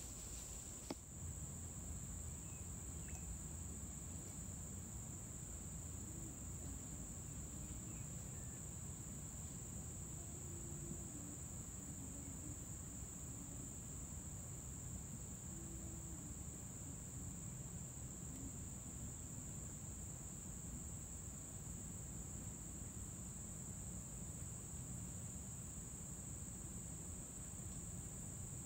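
Steady high-pitched drone of insects, with a faint low rumble beneath it and a single click about a second in.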